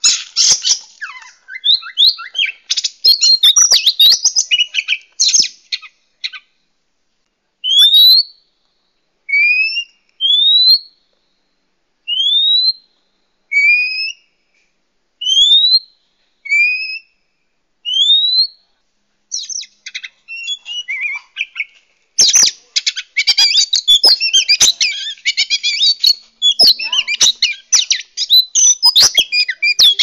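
Oriental magpie-robin (kacer) calls played as a trapping lure: a burst of rapid, varied chattering song, then a slow run of rising whistled notes about one a second, alternating high and lower, then dense chattering song again.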